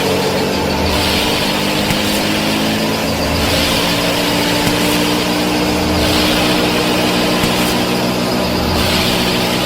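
Small motor of a homemade miniature farm machine running steadily at a constant pitch, with a higher hiss that comes and goes every two to three seconds.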